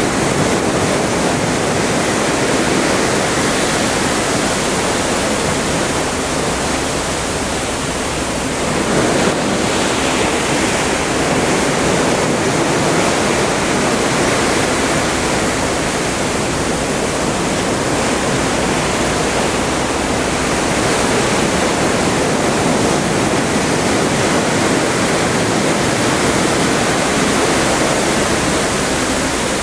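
Atlantic Ocean water rushing and churning past a moving cruise ship: a loud, steady rush that swells and eases slightly.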